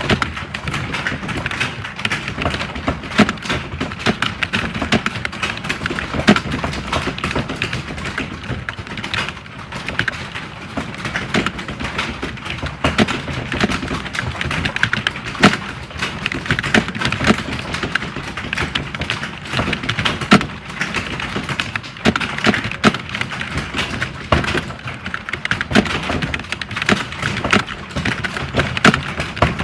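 Several computer keyboards being typed on at once: a dense, unbroken clatter of keystrokes with louder single key strikes standing out every second or two.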